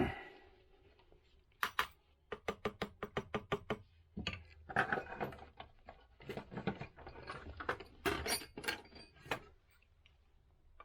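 Metal parts being handled at a workbench. A sharp metallic clank with a short ring starts it, then comes a quick run of clicks, then several seconds of scraping and knocking.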